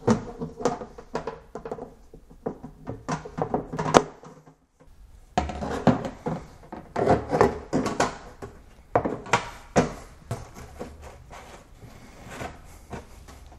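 Acrylic sump parts knocking and clacking as they are handled and fitted back together: the baffle and filter sock table set back in place and filter socks pushed into their holders. Irregular knocks and clacks, with a short break about four and a half seconds in.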